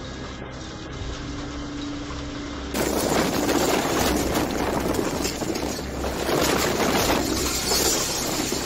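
Hail falling steadily on a yard and swimming pool for the first few seconds, then a sudden cut to much louder storm wind buffeting the microphone, swelling and easing in gusts.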